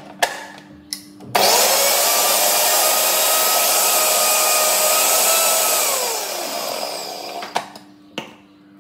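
Electric mixer grinder grinding spices: a few clicks, then the motor starts abruptly about a second and a half in, runs steadily for about four and a half seconds, and winds down with a falling whine.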